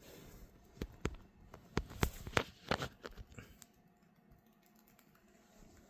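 A quick, uneven run of about a dozen sharp clicks and taps over two or three seconds.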